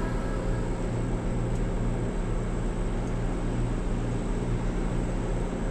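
Steady low drone of shipboard machinery, with an even hiss over it and no change in pitch or level.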